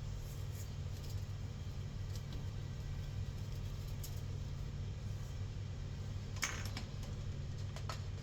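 Metal utensil clinking against a bowl a few times, the sharpest clink about six and a half seconds in, over a steady low machine hum.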